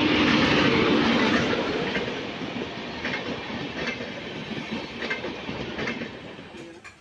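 Electric locomotive and passenger coaches passing at speed. A steady hum from the locomotive is loudest at the start, then the coaches roll by with rhythmic clickety-clack of wheels over rail joints, gradually fading.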